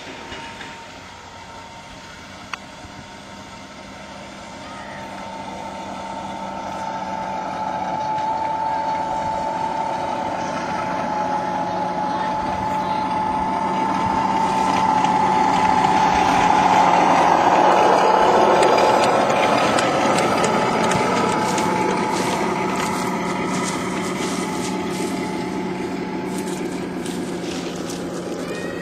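A 7.25-inch gauge diesel-outline miniature locomotive with a rider astride it running past on the track: a steady whine over a low hum, growing louder to a peak about two-thirds of the way through, dipping in pitch as it passes, then fading, with light clicking in the later part.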